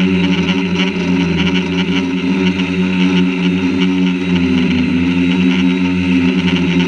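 Quadcopter drone's electric motors and propellers running steadily as it hovers, picked up by the camera on the drone itself. It gives a loud, even buzzing hum whose pitch wavers slightly.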